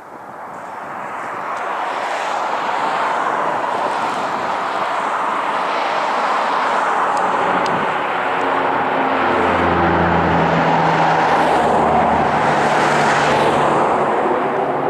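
A twin-engine amphibious water bomber flying low overhead. The engine and propeller noise swells over the first few seconds and then holds loud and steady. In the second half a propeller hum comes through and drops slightly in pitch as the plane passes.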